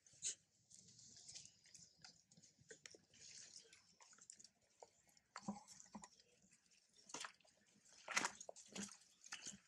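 Faint, irregular crackling and rustling of dry leaf litter with scattered clicks, a few louder ones about seven and eight seconds in.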